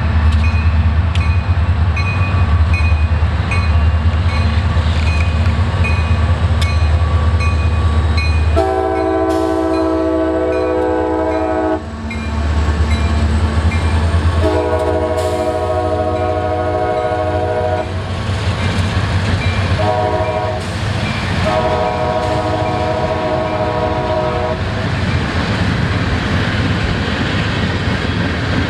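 A diesel locomotive runs close by with a heavy engine rumble, then its air horn sounds the grade-crossing signal: two long blasts, a short one and a long one. Rail and wheel noise from the passing train continues after the horn.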